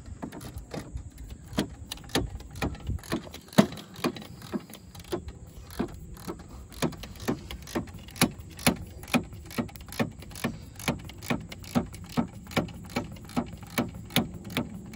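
Snap-on flex-head ratchet clicking as it loosens a hose clamp with an 11 mm socket. The clicks come unevenly for the first few seconds, then in a steady rhythm of about two to three a second.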